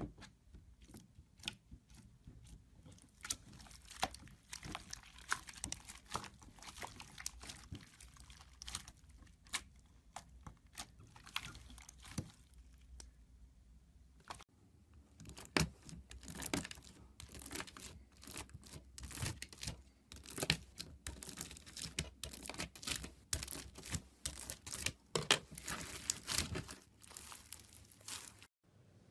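Hands pressing, poking and stretching slime filled with small beads, giving a dense irregular run of sticky crackles, clicks and small pops. The crackling thickens and gets louder in the second half.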